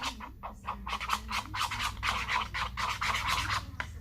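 Slime being stirred quickly with a utensil in a bowl after activator is added: a fast, continuous run of scraping strokes that stops just before the end.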